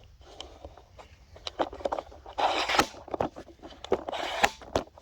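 Handling noise from the camera being picked up and repositioned: a run of scrapes, knocks and clicks, loudest about two and a half seconds in and again near the end.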